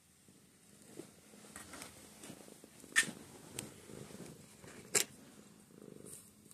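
Domestic cat purring faintly under close rustling of fur and handling, broken by two sharp clicks about three and five seconds in.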